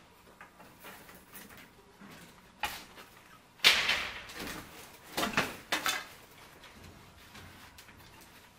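Bamboo-slat fence panel being handled and lifted: a few light wooden knocks, a louder scraping clatter about three and a half seconds in, then a few sharp clacks around five to six seconds.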